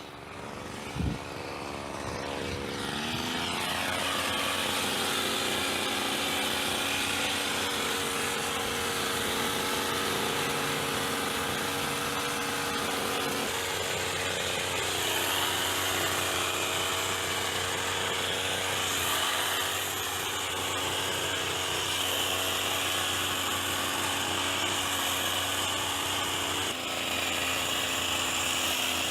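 Petrol hedge trimmer's small engine revving up about two to four seconds in, then running at high speed with its pitch wavering a little. A short knock about a second in.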